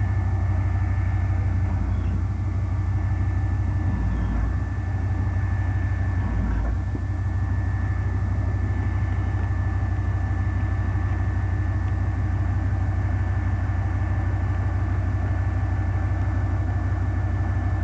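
Heavy engine of a tracked armoured recovery vehicle running steadily, a deep even rumble.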